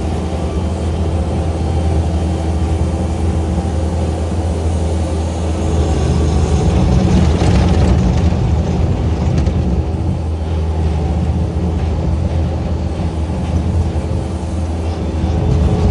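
An engine running steadily with a deep, even hum, swelling louder for a couple of seconds around the middle.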